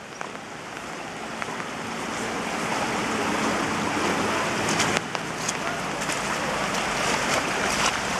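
Muddy floodwater rushing through a flooded yard: a steady rush that grows gradually louder, with a few sharp ticks. The water is the overflow of a drainage ditch whose outlet pipe is blocked.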